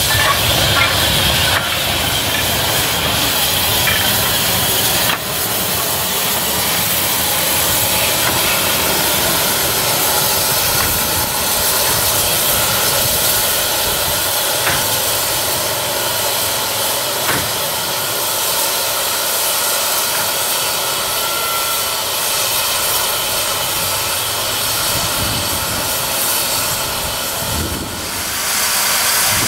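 Steady hiss of steam escaping from a steam tank locomotive, London Transport's L150, as it works along the line.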